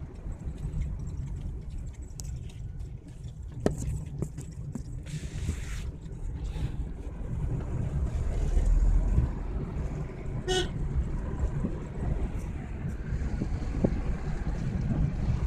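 Car driving, heard from inside the cabin: a steady low rumble of engine and road noise, with one short horn toot about ten seconds in.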